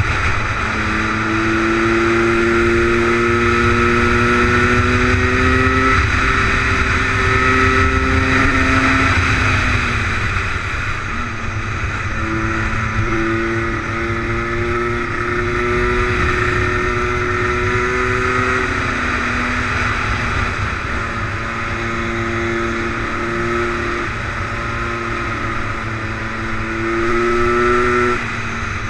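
HM 125 Derapage's two-stroke single-cylinder engine pulling along in gear, its pitch climbing slowly under throttle, dropping off about a third of the way in, then climbing and holding again before a brief rise and drop near the end. A heavy rush of wind and road noise runs underneath.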